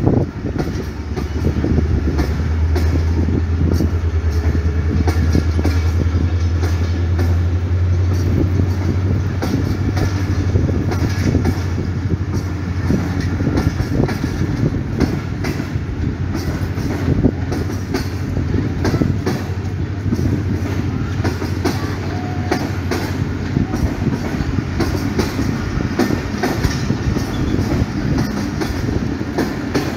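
Pakistan Railways passenger coaches rolling past at speed, their wheels clicking steadily over the rail joints. A strong low hum runs under the first ten or so seconds, then fades.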